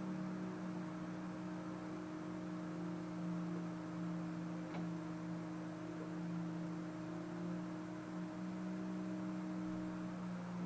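Steady low machine hum with a few unchanging pitches, plus a faint tick about five seconds in.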